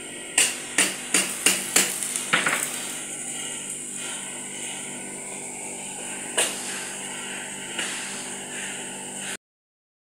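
A quick run of about six sharp knocks, like hammer blows on metal, over a steady hiss, followed by two more single knocks later on. The sound cuts off abruptly near the end.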